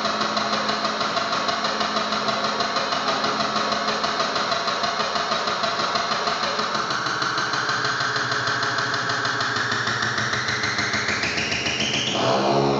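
Circuit-bent electronic noise: a dense, engine-like drone pulsing rapidly and evenly. Over the second half a tone glides steadily upward, and just before the end the sound breaks into a different, rougher texture.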